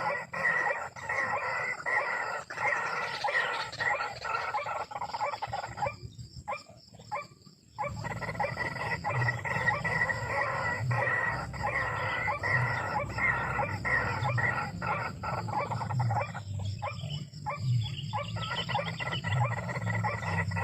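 White-breasted waterhens calling: a fast, continuous run of repeated harsh notes, broken twice by short pauses.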